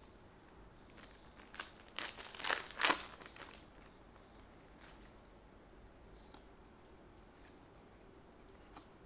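A trading-card booster pack's plastic wrapper crinkling and tearing as it is opened by hand, in a burst lasting about two and a half seconds, followed by a few faint rustles as the cards are handled.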